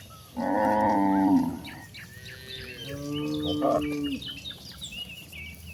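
Cattle mooing: a loud moo starting about half a second in and lasting about a second and a half, then a softer, lower moo around three seconds in. Birds chirp in the background.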